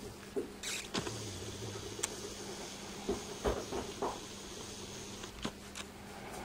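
Camcorder zoom motor running for about four seconds as the lens zooms out, starting and stopping abruptly, with several knocks and clicks from handling the camera.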